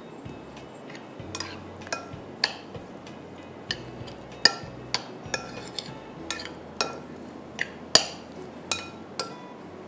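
Metal spoon clinking against a ceramic bowl while small fish are stirred and turned in their marinade: irregular, short ringing clinks, roughly one or two a second.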